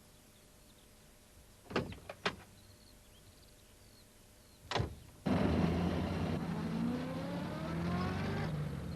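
Van door clunks twice, and a third clunk follows a few seconds later. Then the little post van's engine starts and runs, its note rising steadily as it drives away.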